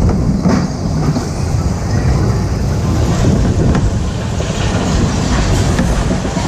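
Reverchon spinning coaster car running on its steel track: a steady rumble of the wheels with a few short clacks.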